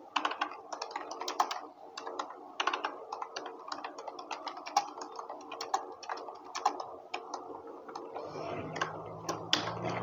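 Typing on a laptop keyboard: quick, irregular key clicks, over a faint steady hum.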